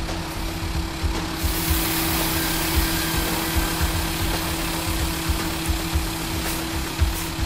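An engine idles steadily with low uneven knocks. About a second and a half in, a loud hiss starts as liquid sprays from a flanged hose connection being opened under pressure, spilling product.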